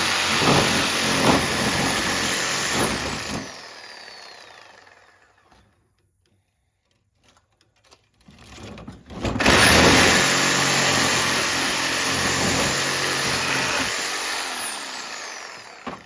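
Power cutting tool with a nearly worn-out blade running through the side of a copper-aluminium radiator, then released so its motor winds down with a falling whine. After a few seconds' pause it starts again, runs for about five seconds and winds down once more near the end.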